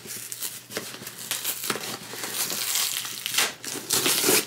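Brown packing tape being peeled and torn off the top of a cardboard shipping box, the loose strip crinkling as it comes away. The peeling grows louder in the second half and stops abruptly near the end.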